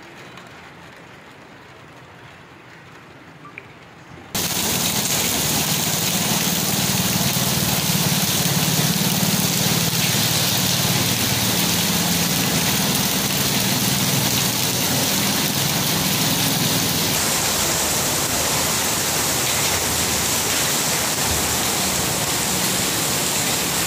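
Heavy rain pouring down onto a street at night, a dense steady hiss. For the first four seconds it is much quieter, then it suddenly becomes a loud downpour with a low rumble underneath for much of the time.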